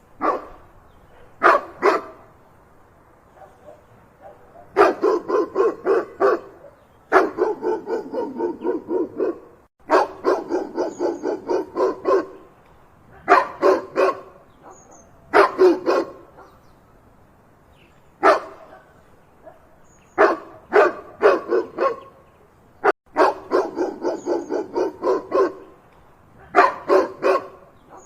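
A dog barking: fast runs of barks, several a second, broken by short pauses and by single or paired barks.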